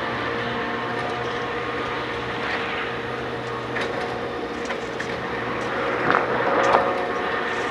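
A Porsche 992 GT3 R race car's flat-six engine running through a silenced exhaust, heard from far off as a steady drone. A few short, sharper sounds come about six to seven seconds in.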